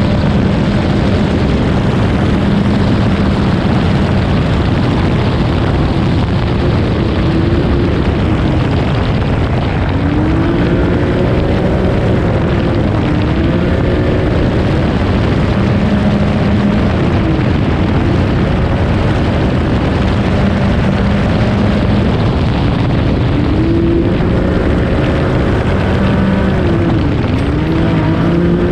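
Onboard sound of an off-road rally vehicle driven hard on a gravel stage: the engine runs at high revs, its pitch rising and falling several times as the driver accelerates and lifts, over constant loud wind and gravel road noise.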